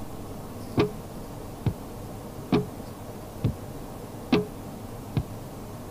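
Television playing quietly: soft, evenly spaced knocks about once a second over a low hiss.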